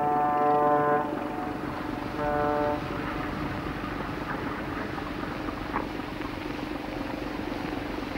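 A steady pitched blast that stops about a second in, then a shorter one about two seconds in, over a steady mechanical rumble with a few faint knocks.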